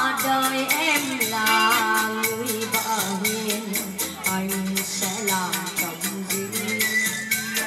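Song music with a steady quick beat under a sustained, gliding melody line.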